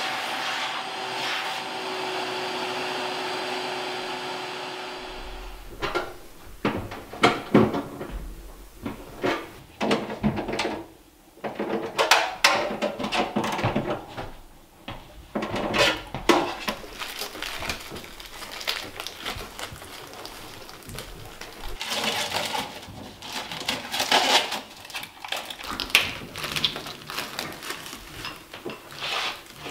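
Ridgid wet/dry shop vacuum running steadily, winding down about five seconds in. Then a long run of irregular knocks, clunks and plastic rustling from work under and around a stainless steel kitchen sink.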